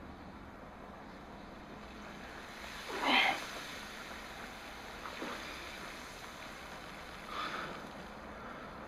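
Film soundtrack of desert wind ambience played through a small Bluetooth soundbar: a steady wind hiss with a few brief whooshes, the loudest about three seconds in.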